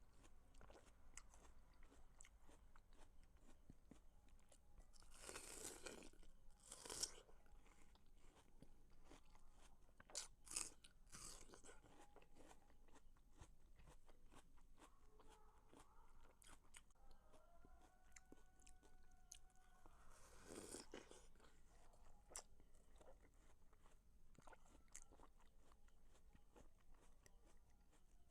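A person biting and chewing watermelon close to the microphone: a steady stream of small wet mouth clicks and crunches, with a handful of louder bites spread through.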